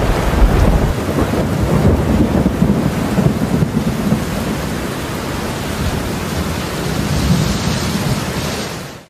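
Steady heavy rain, with a deep thunder rumble in the first moment; the rain fades out at the end.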